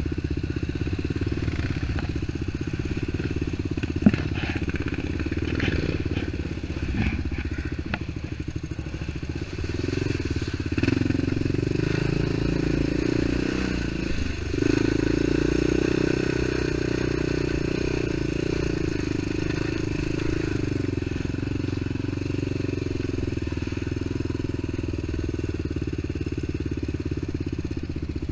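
ATV engine running as the quad rides along a muddy trail, its note rising on the throttle about ten seconds in and again about halfway, after a brief dip. A single sharp knock sounds about four seconds in.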